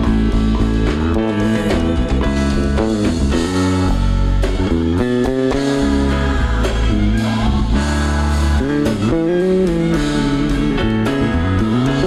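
Live band music: a heavy bass line and drums under a lead melody that slides up and down in pitch.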